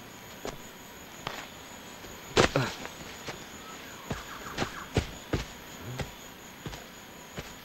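Footsteps on a dirt path through plantation undergrowth: irregular steps, with one louder, longer step about two and a half seconds in.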